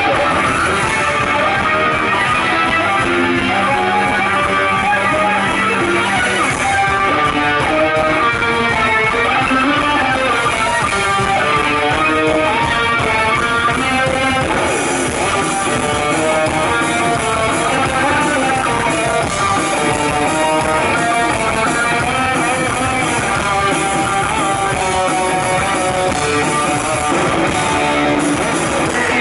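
Rock band playing live: an instrumental passage with electric guitar up front and no vocals, loud and steady.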